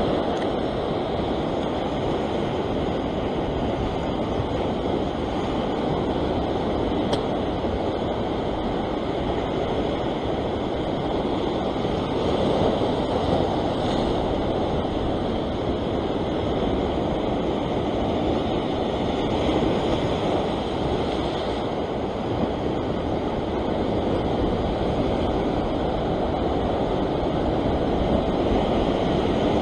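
Ocean surf breaking and washing over a rock shelf: a continuous rush of water that swells louder now and then as each wave comes in.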